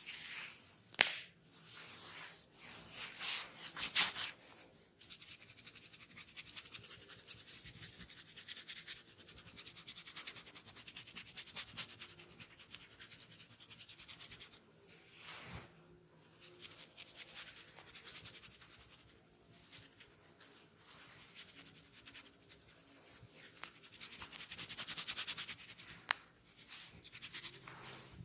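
Scratching and rubbing on a dry scalp through the hair to loosen dandruff: long runs of rapid, fine scratching strokes, broken by a few louder sweeps and a sharp click about a second in.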